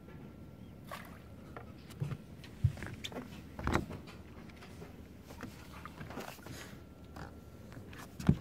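Handling noise from reeling in and landing a small fish at the bow of a boat: irregular knocks and rustles, the loudest a sharp knock just before the end.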